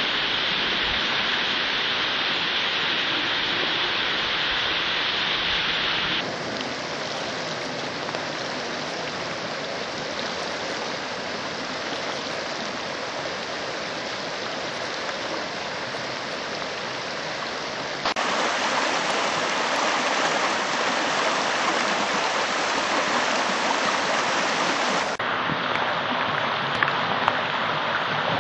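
Flash-flood water rushing: runoff pouring in waterfalls down red sandstone ledges, and muddy water churning over slickrock and through a swollen creek. A steady rush whose loudness and brightness change abruptly about a third of the way in, about two-thirds in, and again near the end.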